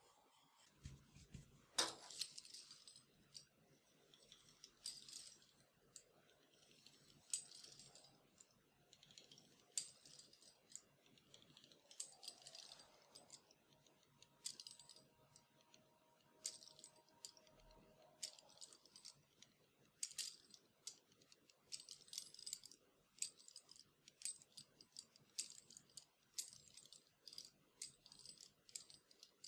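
Metal pizza wheel cutter slicing rolled-out dough on a silicone mat: a faint, irregular clicking and rattling every second or so, with one louder click about two seconds in.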